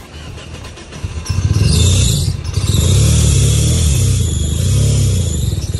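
Car engine running hard under acceleration. It gets much louder about a second in and then swells and eases several times, with a loud hiss early on.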